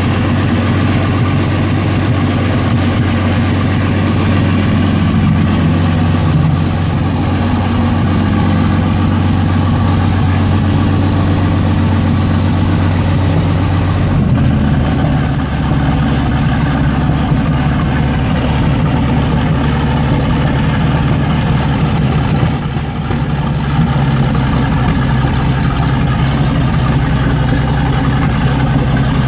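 Jagdpanther tank destroyer's Maybach V12 petrol engine running at a steady idle, a low continuous rumble. Its note changes about halfway through.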